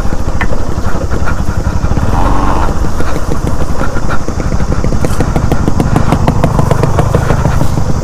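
Bajaj Pulsar motorcycle's single-cylinder engine running steadily at low revs, with a rapid even firing beat, as the bike rides down a rough dirt track.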